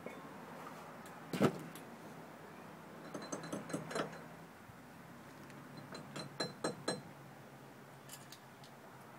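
Hand tools and metal parts clinking and knocking: one sharp knock about a second and a half in, then two clusters of light metallic clinks, around three to four seconds and again around six to seven seconds in.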